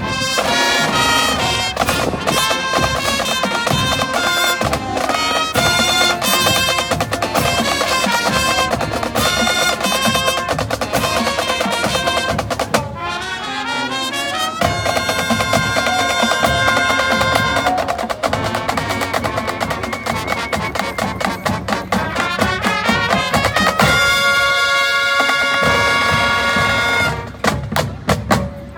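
High school marching band playing: brass with a trumpet lead over drums and percussion in a steady rhythm. It moves into long held brass chords near the end.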